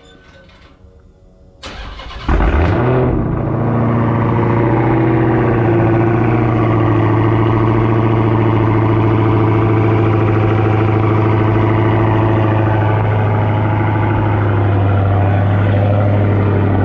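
Cold start of a 2019 Dodge Charger SRT Hellcat's supercharged 6.2-litre V8 with the mid muffler deleted: the starter cranks briefly about two seconds in, the engine catches loudly, then settles into a steady, deep cold idle.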